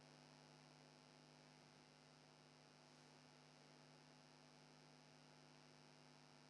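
Near silence: a faint steady hum with no other sound.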